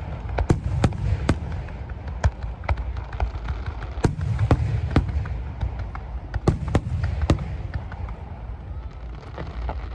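Fireworks going off at a display: a running series of sharp, irregular bangs and cracks, about two a second, over a steady low rumble.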